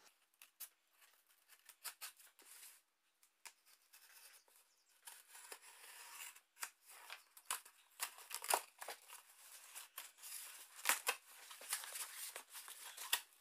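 Craft knife cutting through the tape of a cardboard shipping box: a run of short scratchy cuts and scrapes, sparse at first and busier from about five seconds in.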